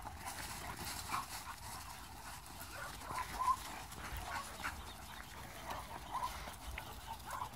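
Pit bulls at play, panting, with a few short faint whines scattered through.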